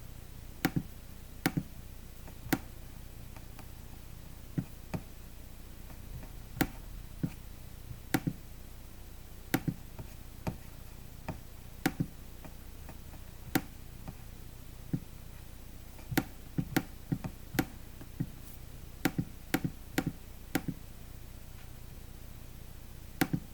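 A series of short, sharp clicks and taps at irregular intervals, roughly one a second, some in quick pairs or small clusters, over a steady low hum.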